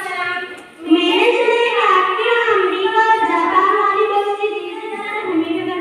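A girl singing into a microphone, in long drawn-out notes that glide up and down, with a short break for breath about a second in.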